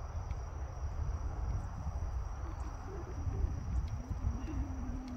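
Crickets chirring steadily over a low rumble of wind on the microphone, with a faint low hum that wavers in pitch from about three seconds in and then holds steady.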